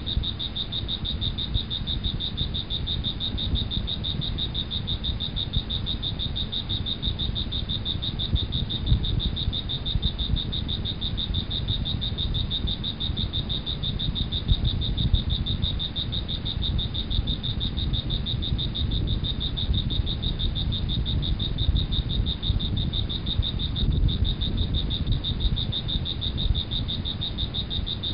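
Nature ambience: a steady high-pitched trilling chorus of small animals over a constant low rumble, unbroken throughout.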